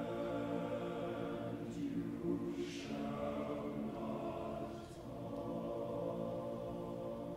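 Men's chorus singing slow, sustained chords a cappella, with a short sung 's' about three seconds in and a brief break between phrases just before five seconds.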